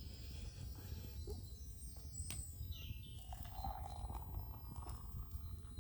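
Small birds chirping a few times, over a steady low rumble of wind on the microphone, with a few light knocks.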